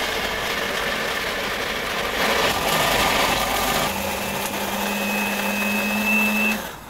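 Electric food grinder's motor running loud, with a steady whine setting in about four seconds in, then switched off near the end.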